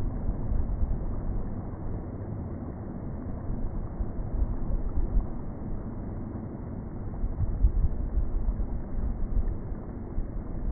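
Gusty low rumble of wind buffeting the microphone, swelling and easing, loudest a little before and about three quarters of the way in.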